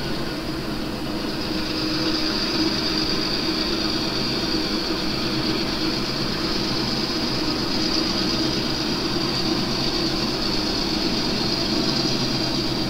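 Model railroad diesel locomotive running slowly with a single car, giving a steady diesel engine drone with a high whine over it.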